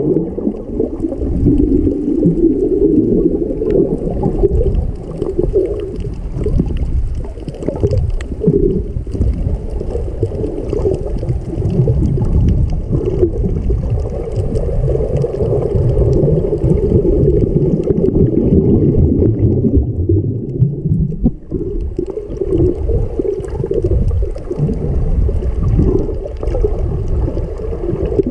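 Muffled underwater rumble and sloshing of water moving around a GoPro's waterproof housing while it is held below the surface by a swimmer.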